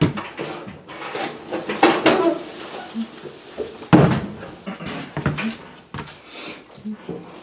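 Sheet-metal electric furnace cabinet being walked and shifted into place by hand: irregular knocks, scrapes and clatter, with a heavy thump about four seconds in.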